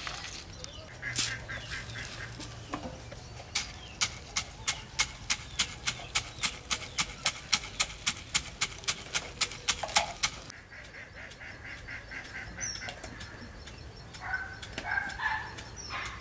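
Wooden pestle pounding roasted peanuts in a stone mortar: sharp, even knocks at about three a second that stop about ten seconds in. Near the end, a few short chicken calls.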